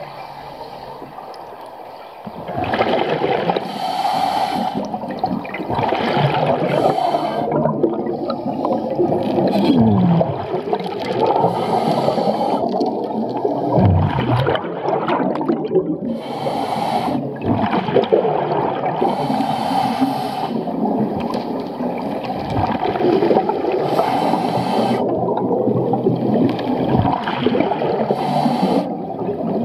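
Underwater sound of a scuba diver breathing through a regulator: a rushing burst of exhaled bubbles every few seconds, with quieter gurgling between the breaths.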